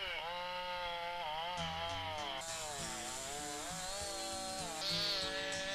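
Two-stroke chainsaw running at high revs in a cut, its pitch dipping and recovering again and again as the chain bites into the tree. Background music with low sustained bass notes plays under it.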